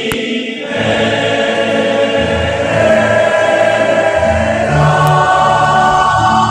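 Music: sustained choir-like voices over a moving bass line, the song's closing passage.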